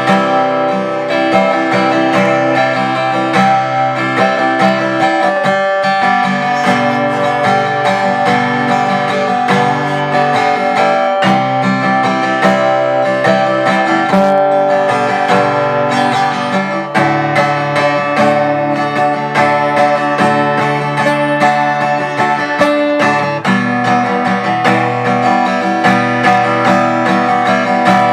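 Acoustic guitar strummed in a steady rhythm, with the chord changing every few seconds, recorded as a sound test of a Rode VideoMicro shotgun microphone.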